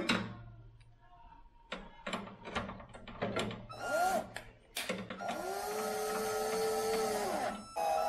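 Electric drill-driver on a long bit extension driving screws into a microwave's sheet-metal casing: a brief burst of the motor about 4 s in, then a longer run of about two and a half seconds that spins up, holds steady and winds down. Clicks and knocks of the screws and tool being handled come before.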